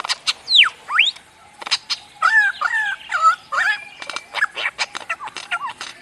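Lyrebird singing a varied run of mimicked calls: sharp clicks, whistles sweeping down and then up, and quick warbled phrases.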